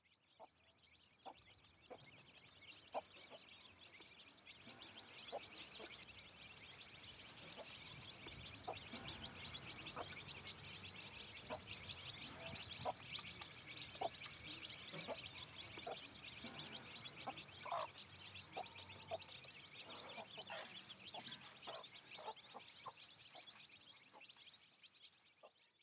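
A brood of chicks peeping, many at once in a dense, continuous chatter of quick high chirps. Lower clucks from a hen sound now and then. The sound fades in at the start and out at the end.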